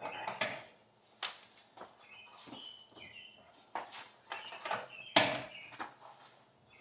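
A lug wrench at work on a car wheel's lug nuts: irregular knocks and clicks, the loudest a sharp knock about five seconds in. Birds chirp faintly in between.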